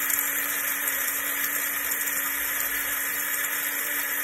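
Small electric blade grinder running at a steady full speed with a constant hum, grinding dry rice to powder.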